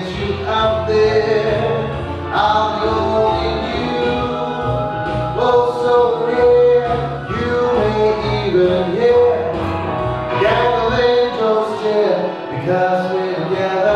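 A man singing live into a microphone over instrumental accompaniment with a steady bass line.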